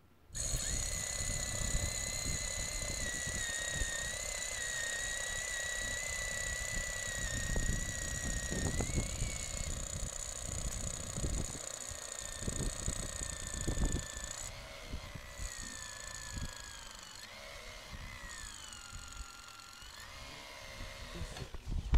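Cordless drill driving an aluminium snow auger into hard-packed glacier snow. The motor whines steadily, its pitch wavering and dipping as the load changes, over the rough crunch of the auger cutting. In the last few seconds the motor pitch rises and falls several times.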